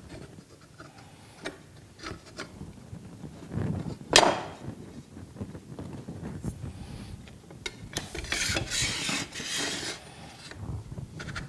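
Steel planer knives being handled in a knife-sharpening jig: small clicks as the clamp knobs are turned, a sharp metallic clink about four seconds in, then a couple of seconds of metal rubbing and scraping as a knife slides along the jig.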